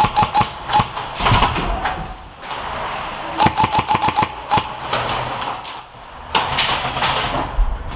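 Airsoft guns firing in rapid bursts: one burst in the first second and another about three and a half seconds in. A rushing hiss follows near the end.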